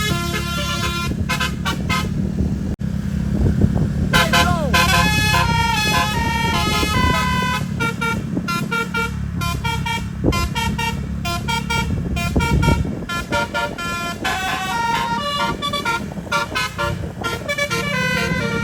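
Telolet basuri bus horn with twelve roof-mounted trumpets playing quick runs of short melodic notes, over a low engine drone. The tune stops for a few seconds about a second in, then starts again and keeps going.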